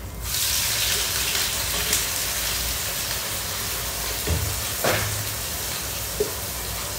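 Blended onion, garlic, ginger and green chilli paste hitting hot oil in a wok, setting off a sudden, loud sizzle that carries on steadily as it fries. A few short knocks come in the second half, as a spatula scrapes the paste out of the blender jug.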